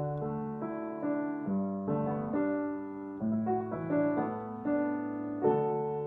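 Solo upright piano played slowly and gently: single melody notes struck about every half second over held bass notes, ending about five and a half seconds in on a chord that is left ringing and fading away.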